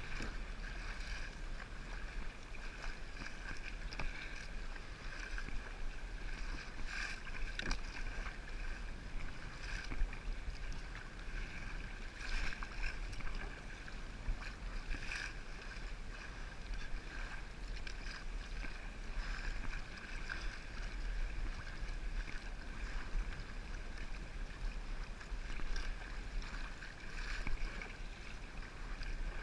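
Sea kayak being paddled: the paddle blades dip and splash with the strokes, and water washes along the hull, over a steady low rumble of wind on the microphone.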